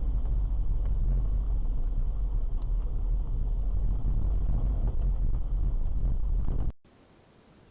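Steady low rumble of a car driving: engine and road noise heard inside the cabin through a dashcam's microphone. It cuts off suddenly near the end, leaving only a faint hiss.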